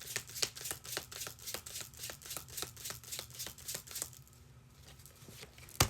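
Tarot cards being shuffled by hand: a quick run of card flicks, about six a second, that stops about four seconds in. One sharp tap comes near the end.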